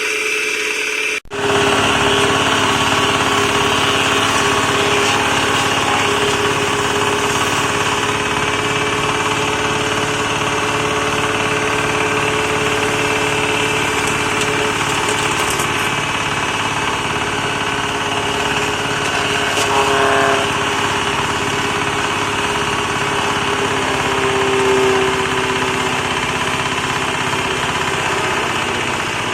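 Small engine of a branch shredder running steadily, with a brief dropout about a second in.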